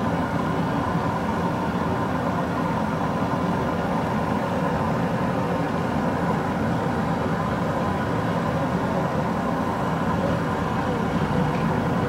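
Fish deep-frying in a wide karahi of oil: a constant sizzle under a steady, engine-like hum.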